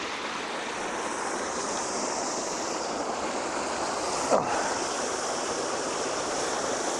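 A waterfall rushes steadily into its pool. About four seconds in comes a short grunt that falls in pitch, made as the hiker lowers himself to sit.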